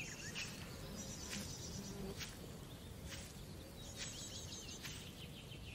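Faint outdoor ambience: small birds chirping over a low steady hiss, with a soft click about once a second.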